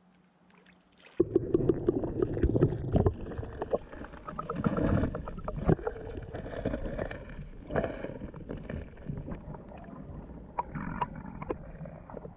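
Muffled rumbling and sloshing of river water through an underwater camera's housing, with scattered knocks and clicks. It starts suddenly about a second in, after near silence.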